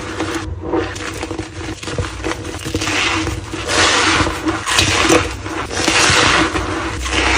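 Reformed white gym chalk being crushed by hand, the soft dusty blocks crumbling and crunching in repeated waves.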